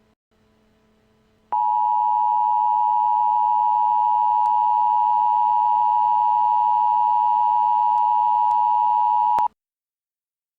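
Emergency Alert System attention signal: two steady, closely pitched tones sounding together. It starts sharply about a second and a half in, holds unchanged for about eight seconds, and cuts off abruptly near the end.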